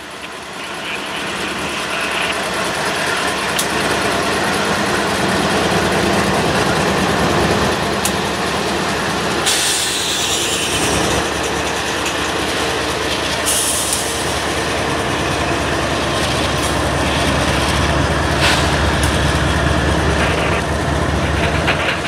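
Freight train led by GE diesel-electric locomotives (BNSF AC4400CW and ES44C4) passing close by: engines running and steel wheels rolling over the rails. It grows louder over the first few seconds, then holds steady and loud as the locomotives and the first autorack cars go by.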